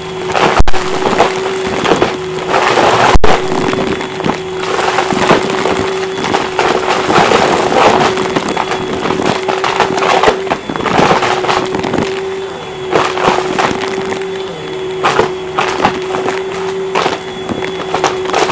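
Upright vacuum cleaner running with a steady hum as it sucks up coins, beads and sequins from carpet, the small hard debris rattling and crackling into the machine.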